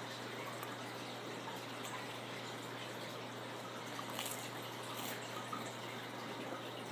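Faint chewing of a mouthful of dry saltine crackers over a steady hiss and low hum, with a couple of short, louder crunches about four and five seconds in.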